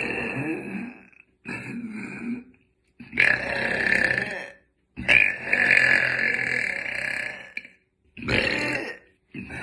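A woman burping loudly, about five burps in a row with short pauses between them, the longest drawn out for nearly three seconds in the middle.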